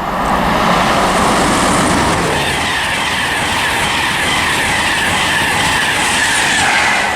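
An LNER InterCity 225, a Class 91 electric locomotive with a driving van trailer, running through the station at speed. It makes a loud, steady rush of wheels and air, with a faint repeating rail clatter.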